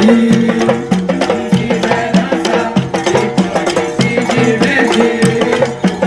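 Bumba meu boi music: large hand-held frame drums (pandeirões) beating a fast, steady rhythm with wood-block-like clacking, under held pitched tones.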